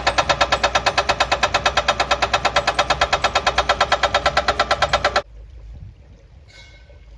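Hydraulic breaker on an excavator hammering rapidly and evenly, about eight blows a second, then stopping abruptly about five seconds in.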